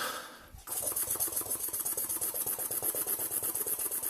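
A man's mouth-made 'underwater squirrel' noise: a rapid, even train of clicking pulses, something like a squirrel's chatter. It breaks off briefly just after the start, then runs on steadily.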